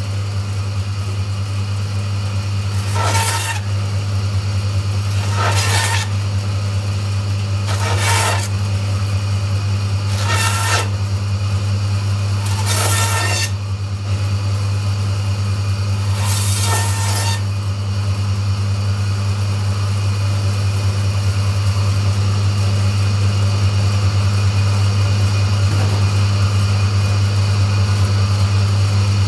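Meat bandsaw running with a steady motor hum while its blade saws six times through a lamb leg, bone included, slicing off chump chops, each cut a short rasp a couple of seconds apart. For the last ten seconds or so the saw runs on empty.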